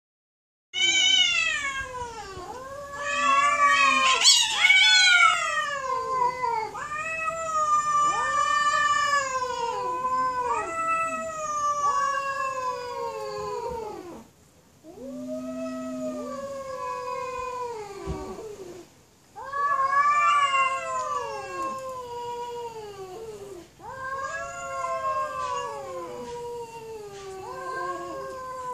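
Two cats, a black cat and a calico, caterwauling at each other in a standoff: long wavering yowls that rise and fall in pitch, one after another. The shrillest and loudest yowl comes about four seconds in, and the wailing breaks off briefly twice past the middle.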